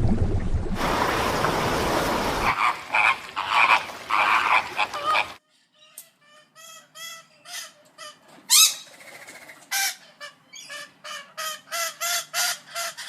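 A noisy hiss for the first couple of seconds, then a run of short, pitched animal calls repeated about one to two times a second, coming quicker near the end.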